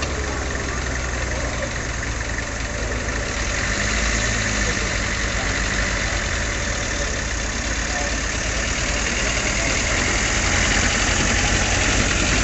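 Engines of a military Land Rover and a tank running as both drive slowly toward and past the listener. The engine noise is low and steady and grows louder toward the end as they come closer.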